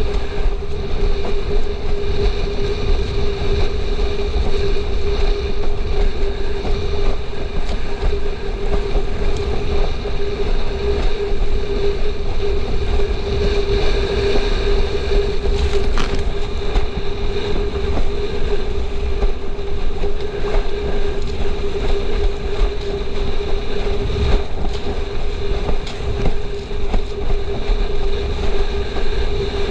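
Wind buffeting the action camera's microphone and water rushing and slapping under a windsurf board planing at speed, with a steady hum held under it.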